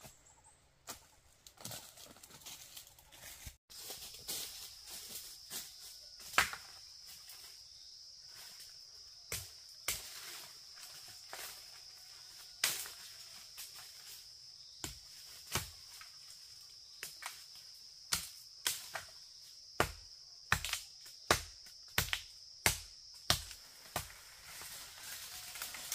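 A steady, high-pitched insect drone starts about four seconds in and holds. Over it comes a run of sharp knocks, sparse at first and close to two a second near the end.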